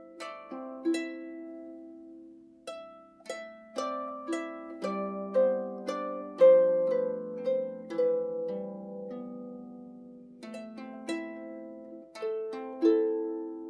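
Background music: a harp playing a slow melody of plucked notes and chords, each note ringing and fading.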